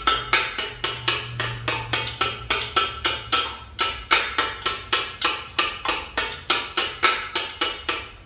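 Hammer lightly tapping a brass punch against a roller bearing, driving it into a manual transmission case: a steady run of taps, about three or four a second, each with a short metallic ring.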